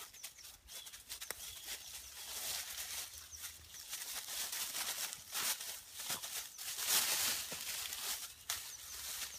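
Dry fallen leaves rustling and crunching as a golden retriever puppy scrambles through them and a person shifts their feet during a game of tug. The rustling comes in uneven bursts and is loudest about seven seconds in.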